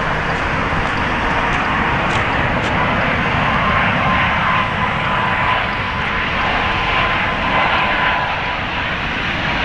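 Boeing 777-200ER airliner on final approach to land, its jet engines making a steady loud rush with a thin whine held at one pitch through it.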